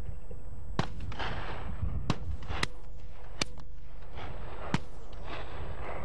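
Shotguns firing at driven pheasants: about five sharp shots at irregular intervals, some trailing off in a short echo, over a steady low wind rumble.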